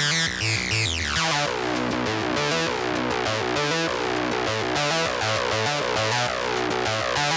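Electronic intro music played on synthesizers, with a repeating bass line and a sweeping glide in pitch about a second in.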